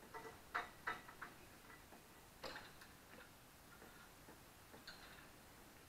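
Near silence broken by a few faint, irregular clicks and taps from hand assembly work on a playset's deck.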